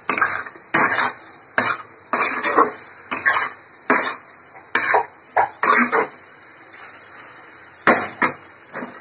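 Metal spatula scraping and knocking against a kadai while stirring soft cooked pumpkin sabzi, in short irregular strokes about every half second to a second, with a pause of about a second and a half past the middle.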